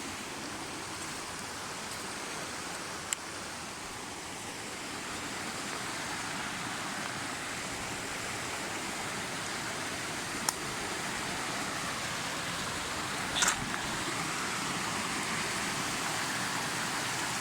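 Steady rush of a mountain river and waterfall, an even hiss of water, with three brief sharp clicks spread through it.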